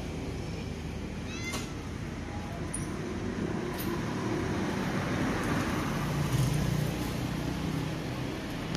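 A domestic cat meowing over steady background traffic noise.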